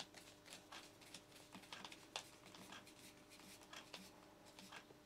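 Faint, irregular small clicks and scrapes of a screwdriver tightening the earth terminal screw on a double wall socket, with a faint steady hum underneath.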